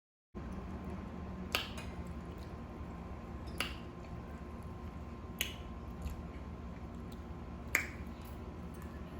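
Four sharp clicks of cutlery against plates, spaced about two seconds apart, over a steady low hum. The sound cuts in abruptly just after the start.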